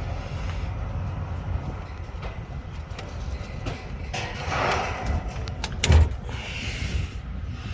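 Old spark plug wire being worked off the Chevy Astro engine by hand, with scraping and clicks, then one sharp snap about six seconds in as it breaks.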